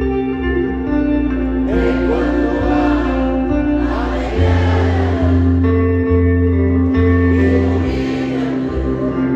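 Live band playing a slow song with steady held chords and bass notes, while a large concert crowd sings along.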